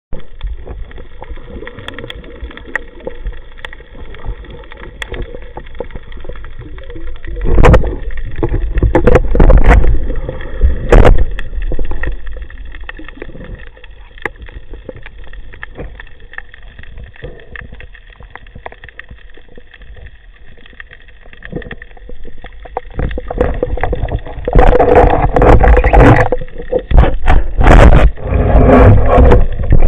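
Muffled water sloshing and gurgling, with loud low rumbling surges about eight to eleven seconds in and again over the last five seconds.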